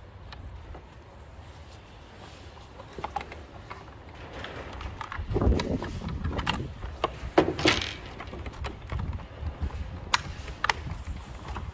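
Hard plastic trim being prised apart with a long screwdriver: clicks, creaks and scrapes as the door card's switch-panel carrier is levered off its leather trim and the small metal retaining clips pop free. The first few seconds are quiet handling, then from about four seconds in comes a run of sharp snaps and knocks.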